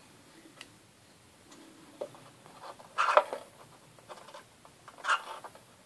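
Clicks and scratchy scrapes from hands fitting capacitor leads into a circuit board and working a soldering iron on the joints. They come in short clusters about two, three and five seconds in, the one at three seconds the loudest.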